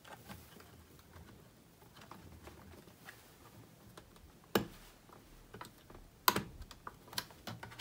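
Faint scattered clicks and light taps of a laptop SSD being handled and fitted into the drive bay. Two sharper clicks stand out, one a little past halfway and a louder one later.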